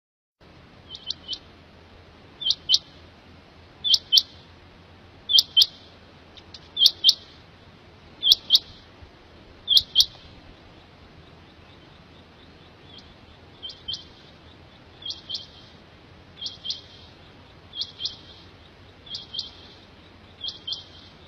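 Pekhawri batair quail calling: a short high-pitched call of two or three quick notes, repeated about every second and a half. The calls are loud at first, pause briefly about halfway, then go on more softly, over a faint steady low hum.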